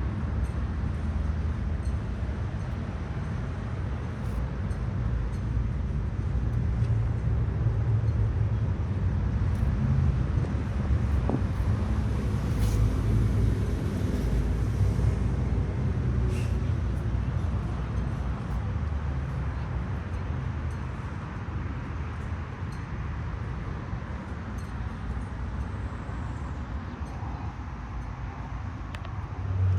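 Steady low rumble of motor vehicle noise, louder for a few seconds in the middle.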